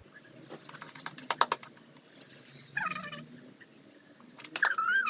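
A cat meowing twice, two short calls falling in pitch, after a quick run of sharp clicks near the start.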